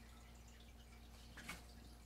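Near silence: room tone with a steady low hum and faint scattered ticks, and one short soft click about a second and a half in.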